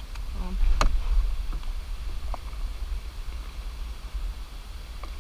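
Steady low wind rumble on the camera microphone in a canoe, with one sharp knock just under a second in and a few lighter taps after.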